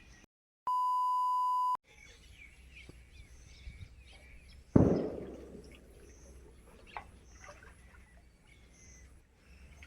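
A steady electronic beep lasts about a second near the start. Over faint outdoor chirping of birds and insects, a sudden loud thunderclap cracks about five seconds in and dies away over a second or more.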